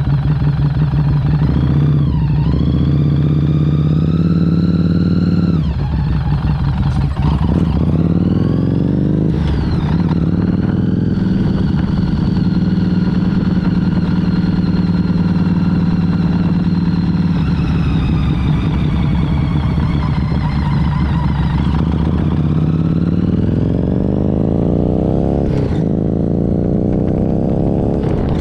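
Harley-Davidson Street 500's liquid-cooled V-twin engine running under way through the gears. The revs climb and drop at gear changes about six and ten seconds in, hold and slowly fall for some ten seconds, then climb again with another shift near the end.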